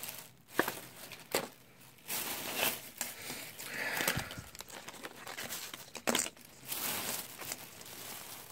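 Plastic shopping bag and plastic packaging crinkling and rustling as hands rummage through them, with a few sharp clicks.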